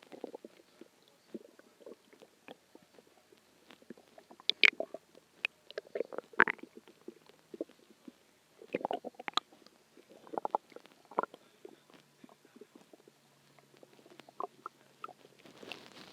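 Human stomach growling and gurgling in irregular bursts of short pops and squelches, loudest around the middle, as it digests a large meal.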